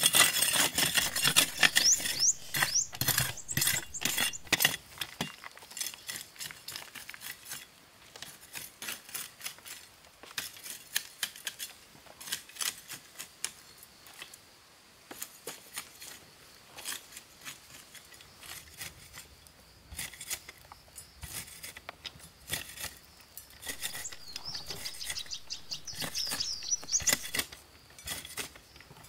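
A run of sharp knocks and clicks, rapid and loud for the first few seconds, then scattered and fainter, with chirps about two seconds in and again near the end.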